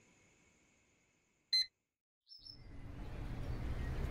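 A single short electronic beep of a hospital patient monitor about one and a half seconds in, then a moment of silence. A brief high chirp follows, and background street ambience fades in, growing steadily louder.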